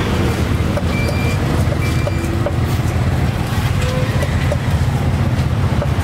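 An engine running steadily at a low, even pitch, with a few faint short high tones over it.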